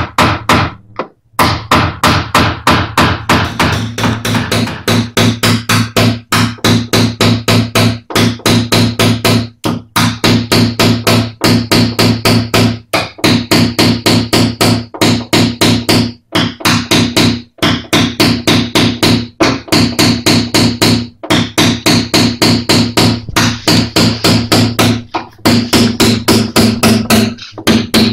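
Rapid tapping of a paintless-dent-repair knockdown punch struck with a small mallet against the steel front wing of a Lada Granta, about five light blows a second with brief pauses, knocking down high spots to relax the metal around a crease. Steady low tones run underneath from about four seconds in.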